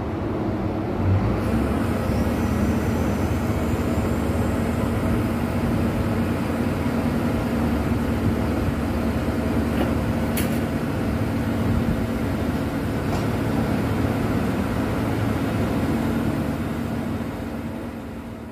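Large engine running steadily at an even speed with a constant low hum, with one sharp metallic clink about ten seconds in; the sound fades out near the end.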